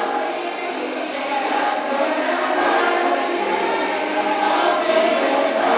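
Wrestling crowd chanting together in unison, loud and continuous.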